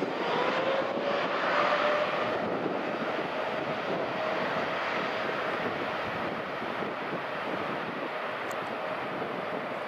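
Jet engines of a Qatar Airways Boeing 787 Dreamliner at takeoff thrust as it accelerates down the runway, heard from behind: dense jet noise with a whine that rises slightly in pitch over the first second or so. It is loudest about one to two seconds in, then slowly fades as the aircraft pulls away.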